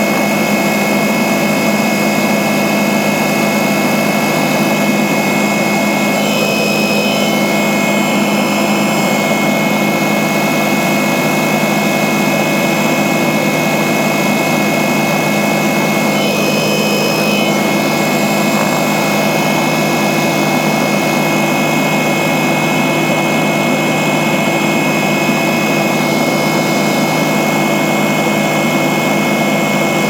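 Helicopter in steady flight heard from inside the cabin: constant engine and rotor noise with several steady whining tones layered over it.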